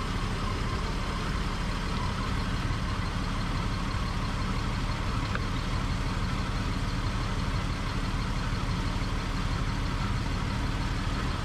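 2001 BMW 5 Series engine idling steadily, with the newly installed electric radiator fan running.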